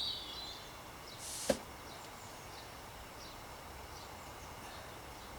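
Faint outdoor background with a short bird chirp at the start and small scattered chirps. About one and a half seconds in, a quick swish ends in a single sharp click.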